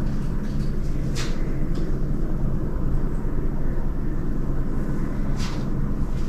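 Steady low hum and rumble, with two brief soft rustles, about a second in and near the end.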